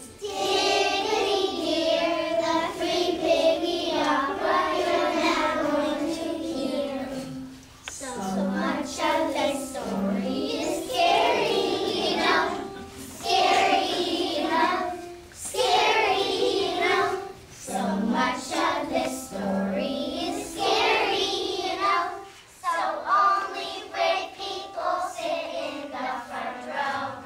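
A class of kindergarten children singing a song together in unison, in phrases of a few seconds with short breaks between them.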